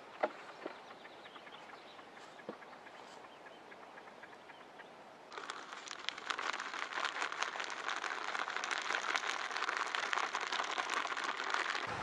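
A hand stirring and squeezing dry fishing groundbait in a plastic bucket: a dense, crackling rustle of crumbs that starts suddenly about five seconds in. Before that, dry groundbait trickles faintly into the bucket with a few soft knocks.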